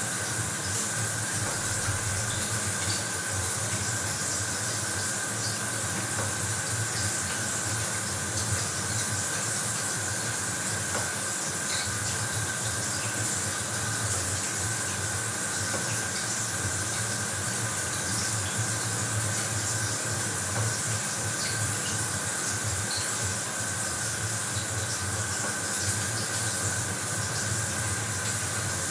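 Bathroom shower running steadily, water spraying and splashing with an even hiss and faint scattered drips.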